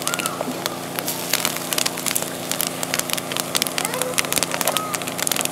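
Campfire wood crackling and popping in a rapid, irregular stream of sharp snaps, over a steady low hum.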